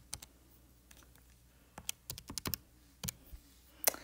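Keys being pressed as a calculation is entered, about a dozen sharp clicks: a couple at the start, a quick run about two seconds in, then single presses near the end.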